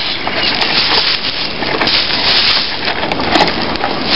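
Wooden boards being handled and knocked against a homemade ladder stand, with dense crackling and rustling from dry leaf litter.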